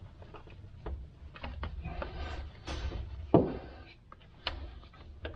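Scattered light clicks and knocks of hand tools and metal parts being handled, with one louder knock a little past halfway.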